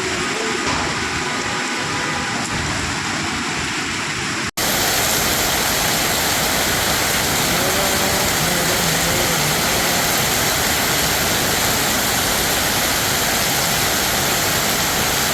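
Heavy downpour and rushing water: a loud, steady hiss. It cuts out for an instant about four and a half seconds in, then comes back louder and fuller.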